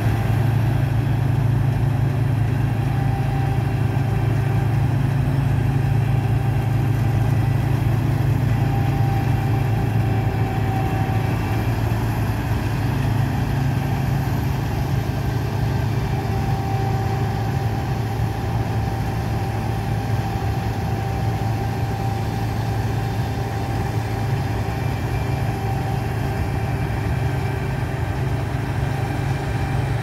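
Laverda M306 combine harvester running steadily as it harvests grain: a deep, even engine drone with a faint higher whine that comes and goes, growing slowly fainter.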